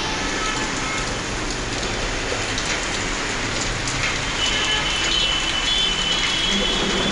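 Heavy rain falling on a flooded street: a steady, even hiss of downpour. About four seconds in, a thin high whine joins it.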